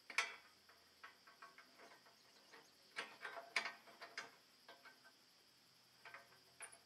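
Faint metal clicks and clinks from a compact tractor's three-point hitch as the top link is worked by hand to fit a rear blade. The sharpest click comes right at the start, with a quick run of clinks about three seconds in and a few more near the end.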